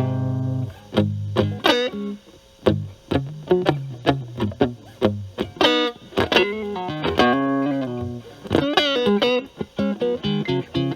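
Fender Stratocaster with single-coil pickups played through a Metal Pedals Rawhide overdrive pedal, gain set at about 7 to 8, into the clean channel of a Marshall Valvestate amp. It plays picked single-note lines and short chords with overdrive, with a string bend or vibrato about nine seconds in.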